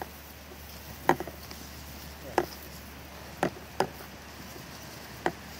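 Footsteps through tall dry grass: about half a dozen short, sharp snaps of dry stalks underfoot, spaced irregularly about a second apart, over a faint steady background.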